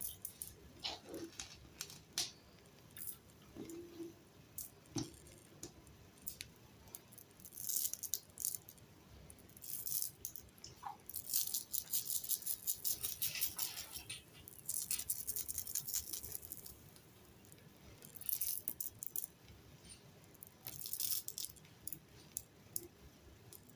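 Rattling, clicking and rustling of a bicycle and its packaging being handled, in irregular bursts that come thickest around the middle.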